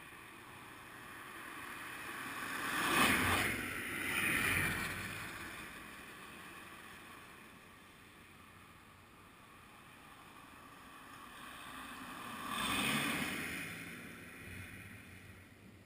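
Vehicles passing by: tyre and engine noise that swells and fades, twice in quick succession about three and four and a half seconds in, and once more around thirteen seconds.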